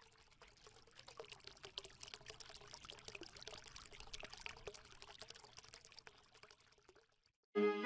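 Faint water pouring and trickling, a dense run of fine crackles that swells and then fades out about six and a half seconds in. Music starts abruptly right at the end.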